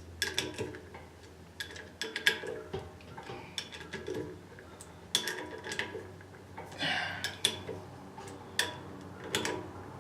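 Irregular metallic clicks and clinks of hand tools tightening the bolts that draw a bushed V-belt pulley onto an electric motor shaft, in short clusters, with a brief scrape near the middle.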